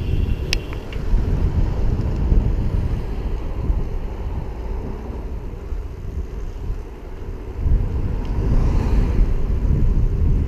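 Wind buffeting the microphone of a recumbent bicycle moving along a road, a dense gusty rumble throughout. There is a single sharp click about half a second in.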